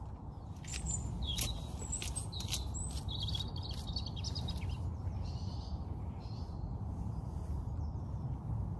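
Wild birds chirping, a few short high calls and one quick trill in the first few seconds, over a steady low rumble.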